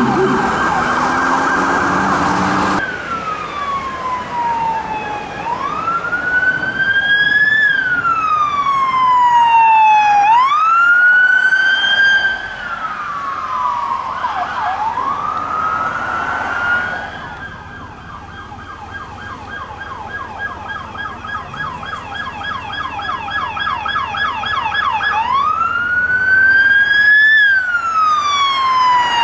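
Police electronic siren on a Ford Police Interceptor Utility, sounding a slow wail that rises and falls every few seconds. About halfway through it switches to a fast yelp, then goes back to the wail near the end. A different, harsher siren sound plays for the first few seconds and cuts off abruptly.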